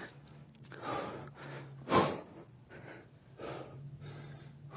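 A person breathing hard through the nose and mouth during a bodyweight movement, with a few audible breaths and a sharper, louder exhale about two seconds in, over a faint steady low hum.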